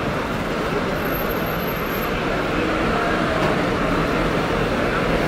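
City bus driving slowly past close by, a steady engine and road noise that grows a little louder about halfway, over the general hubbub of a busy street.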